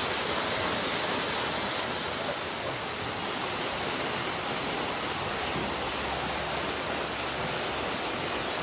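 Waterfall pouring into the lake, a steady even rush of falling water.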